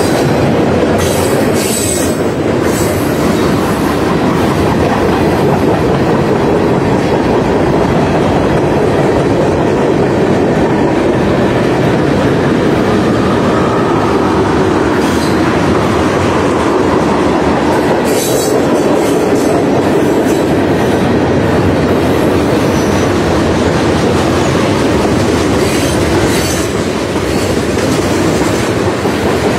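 Freight train cars rolling past at close range: a steady, loud rumble of steel wheels with rhythmic clickety-clack over the rail joints. Short high-pitched wheel squeals come in about two seconds in, again around eighteen seconds and near the end.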